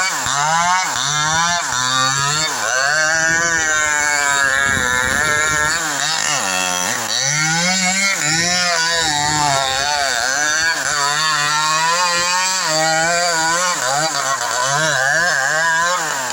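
Petrol chainsaw running hard while cutting into a tree, its engine pitch repeatedly climbing and dipping as it revs and loads up in the wood.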